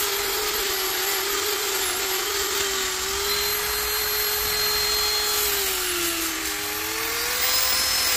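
Electric power file (narrow-belt sander) running steadily, its abrasive belt grinding a steel spanner into a sharp carving blade. The motor's pitch sags about six seconds in and climbs back near the end.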